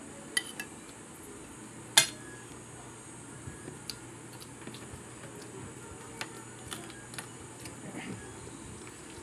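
Eating utensils clinking against a plate during a meal, in scattered light clicks with one sharp, much louder clink about two seconds in.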